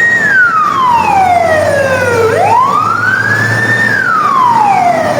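Ambulance siren in wail mode: a slow tone that falls, climbs quickly back up, holds a moment and falls again, one cycle every three and a half seconds or so, over the low hum of the vehicle's engine.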